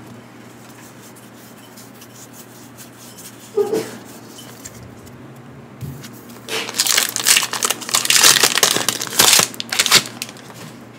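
Foil wrapper of a Pokémon 151 booster pack crinkling and tearing as it is ripped open by hand: a loud burst of crinkling that starts about six and a half seconds in and lasts about three and a half seconds, after a quiet stretch.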